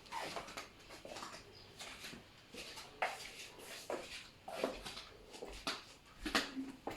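Footsteps in flip-flops on a hard floor: an uneven series of short slaps, about one to two a second, with the soles smacking against the heels.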